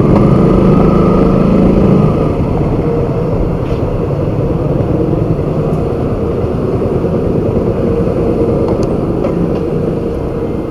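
Motorcycle engine running at low speed, a little louder for the first two seconds as the bike rolls in, then a steady, lower running sound once it is stopped at the pump.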